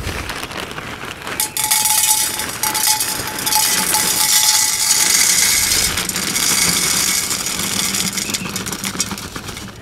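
Expanded clay pebbles poured from a plastic bag into a large empty glass jar for a drainage layer: a dense rattling clatter of pebbles hitting the glass and each other. It starts about a second and a half in and eases off near the end.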